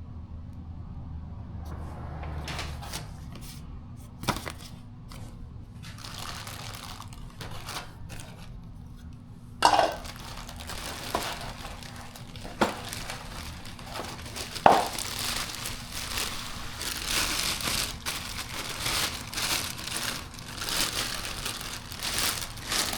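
A SteadyRack bike rack being unpacked: cardboard and plastic packaging rustle and crinkle, with a few sharp knocks. It is sparse at first and grows busier and louder about ten seconds in.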